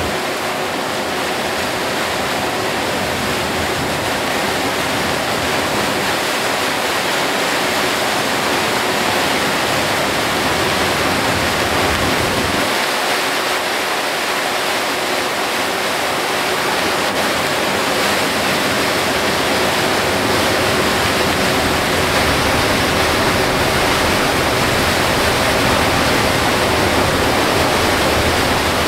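Torrential rain hitting a Hino Selega HD coach and spray from its tyres on the flooded road, heard from inside the cabin as a steady, dense rush that grows slightly louder toward the end.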